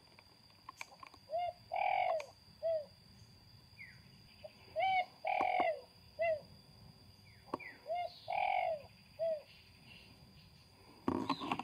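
A dove cooing: a three-note phrase, short, long, short, repeated three times about every three seconds.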